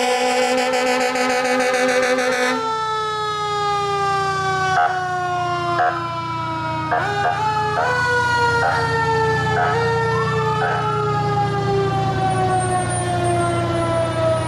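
Fire engine siren: a rapidly pulsing tone for the first couple of seconds, then a single long tone that falls slowly in pitch, broken by several short blasts in the middle. Underneath, the truck's engine runs steadily.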